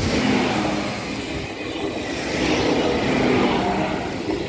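A vehicle passing close by: a steady, loud rushing noise with a faint hum in it.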